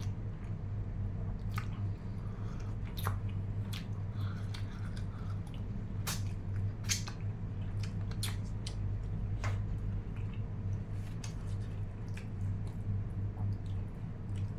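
A person chewing food close to the microphone, with scattered wet smacking clicks, over a steady low hum.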